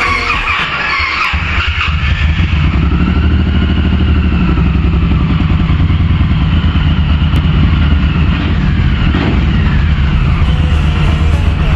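Suzuki M1800R's freshly rebuilt 1800cc V-twin motorcycle engine running with a steady, deep exhaust pulse, taking over from music about a second in.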